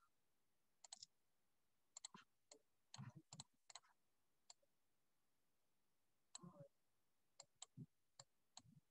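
Near silence with faint, scattered clicks and taps of a stylus on a drawing tablet while handwriting is erased and rewritten.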